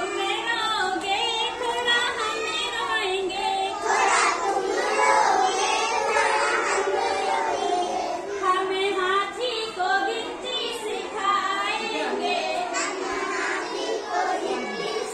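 A group of young children singing a Hindi counting rhyme together in chorus.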